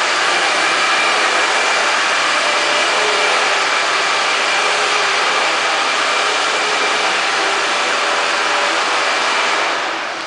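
Loud, steady whooshing noise of a motor-driven blower, with faint steady whining tones in it; it cuts off suddenly near the end.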